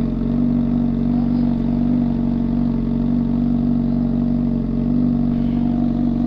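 Motorcycle engine running steadily at a constant speed, with no revving.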